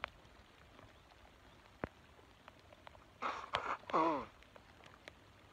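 A brief untranscribed burst of a man's voice, a breathy sound running into a falling vocal tone, about three seconds in. Before it there is only a quiet background with a single sharp click.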